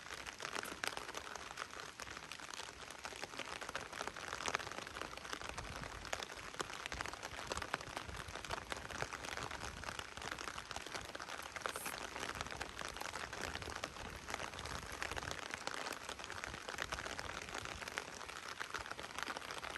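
Heavy rain falling, a steady dense patter of many small drop impacts.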